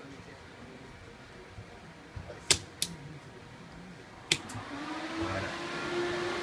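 Four sharp clicks in two pairs as the circuit breakers on a portable power distribution box are snapped on. After the second pair, the IBM Blue Gene/P's cooling fans spin up: a whir with a steady hum that grows louder, the machine powering on.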